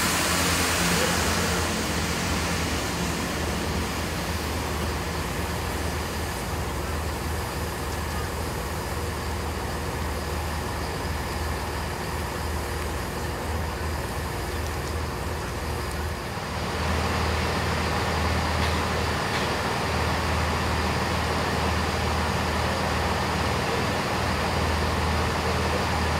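Diesel train engine running steadily with a low hum, growing louder about sixteen seconds in.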